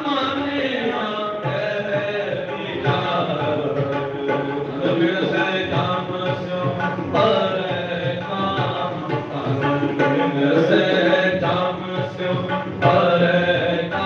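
Shabad kirtan: harmoniums playing held chords with tabla keeping a steady beat, under a male voice singing with gliding, ornamented phrases.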